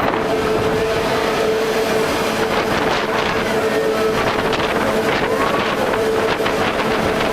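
The Petit Train Jaune, a small electric metre-gauge train, running along the line: a steady rumble and rattle with a steady whine held at one pitch.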